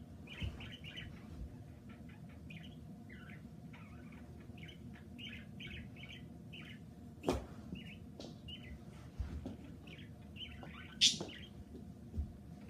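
A pet cage bird chirping over and over in short high notes. A few sharp knocks break in, the loudest about 11 seconds in.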